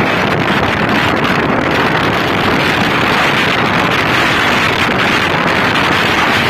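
Steady, loud rush of wind on the microphone of a motorcycle rider travelling at road speed.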